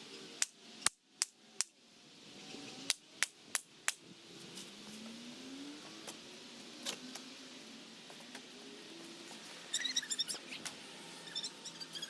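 Hammer pounding during demolition of a shop wall: two runs of four sharp blows about three a second, a single blow later, then a flurry of lighter clicks and rattles near the end.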